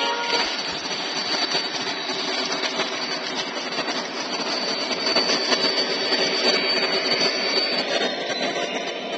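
O-gauge model train running past on three-rail track: the Conrail SD70ACe model diesel and its passenger cars make a steady mechanical running noise with a thin high whine. The whine stops and the sound eases off near the end.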